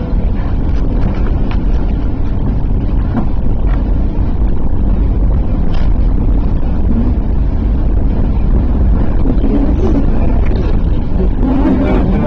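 Eiffel Tower lift climbing toward the first floor: a steady low rumble and rush of the moving car, with a few faint knocks.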